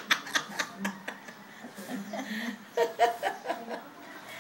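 An elderly woman laughing in short, repeated chuckles that trail off in the first second, followed by a second burst of laughter about three seconds in.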